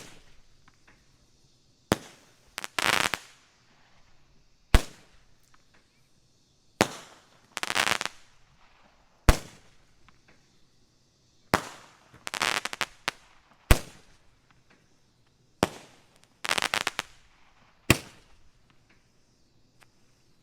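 Black Cat 'Double Barrel' Roman candle firing its shots. There are about ten sharp pops, roughly two seconds apart, and several are followed a moment later by a brief burst of crackling.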